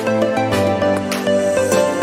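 Soft instrumental background music with held notes over a light, regular beat.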